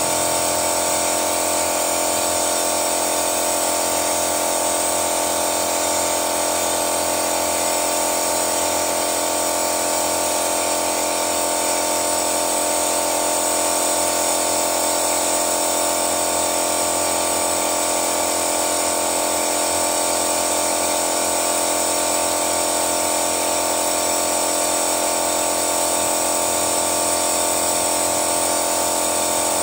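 Toyota Yaris four-cylinder engine running at a steady speed with an unchanging hum and hiss while engine-cleaning fluid is drawn into its intake.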